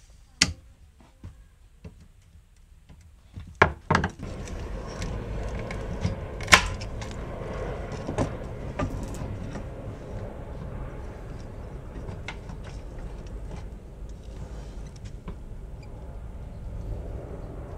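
Sharp plastic clicks and knocks as a BMW E36's fuel level sender assembly is pried from its clips with a screwdriver and worked out of the fuel tank opening. The loudest snaps come about half a second in, at about four seconds and at about six and a half seconds. A steady low rumble sets in about four seconds in.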